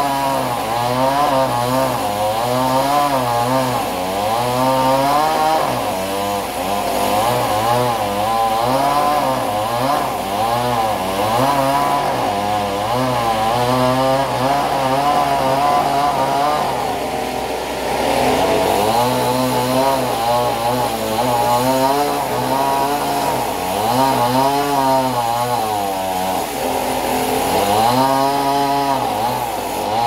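Large stationary band sawmill running and sawing through a log: a loud, steady buzzing drone whose pitch rises and falls over and over.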